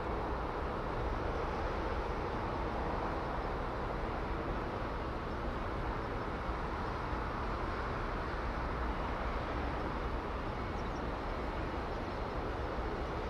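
Steady outdoor background noise: an even low rumble and hiss with a faint steady hum, with no distinct events.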